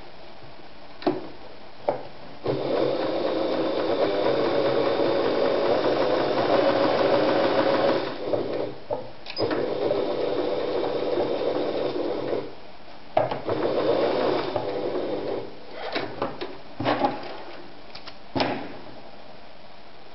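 Singer Rumina 3000 electric sewing machine stitching fabric, run from the foot pedal in spurts: a long run of about five seconds, a short slowdown, two more runs with brief stops between, then a few short bursts near the end. Two sharp clicks come just before it starts.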